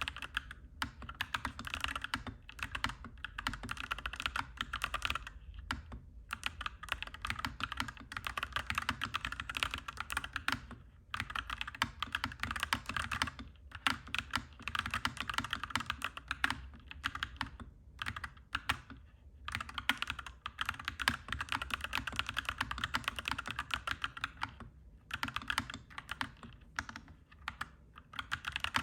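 Fast, continuous typing on a clacky mechanical keyboard, in runs of several seconds broken by short pauses a few times.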